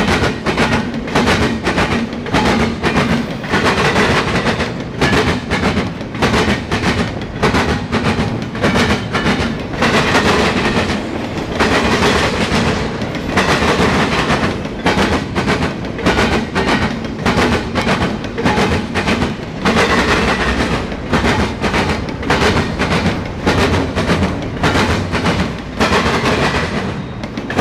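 Steel wheels of a passing double-stack container train, Norfolk Southern 277, clattering fast and continuously over the track and the diamond crossing, over a steady rolling rumble.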